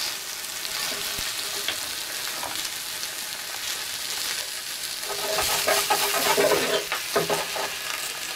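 Fresh spinach and basil leaves sizzling in hot oil in a stainless steel frying pan as they wilt in the sauté-and-blanch step. The sizzle is steady, then louder with crackling and a few knocks for a couple of seconds past the middle.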